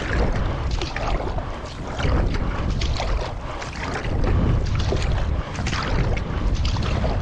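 Paddle strokes splashing into the water in a steady rhythm while a paddle board moves through the water, with wind rumbling on the bite-mounted GoPro microphone.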